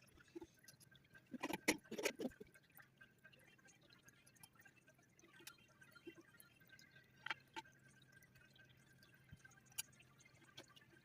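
Toilet tank parts being handled and fitted: scattered small clicks and knocks, with a quick run of louder knocks about a second and a half in.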